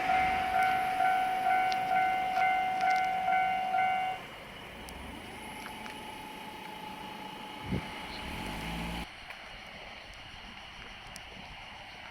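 Japanese railway level crossing alarm clanging at about three strikes a second, stopping about four seconds in. A quieter steady hum follows and cuts off suddenly near the end.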